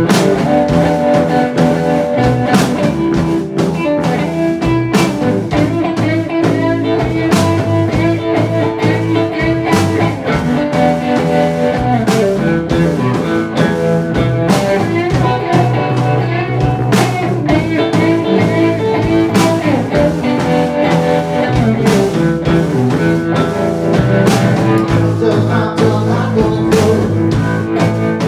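Live roots rock trio playing: electric guitar, electric bass guitar and a drum kit, with the drums keeping a steady beat.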